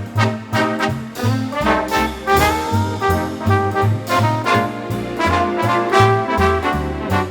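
Instrumental Christmas jazz: brass horns playing a melody with a gliding note about two and a half seconds in, over a bass line stepping from note to note about twice a second and a steady beat.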